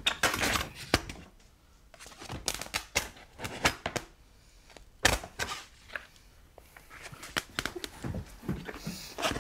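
Scattered light knocks, clicks and rustles of a canvas and wooden easel being handled, coming irregularly, with a lull about a second and a half in and another about six seconds in.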